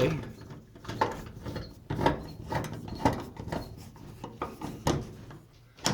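A screw with a flat washer being turned in by hand: irregular scraping, rubbing and clicking as it tightens.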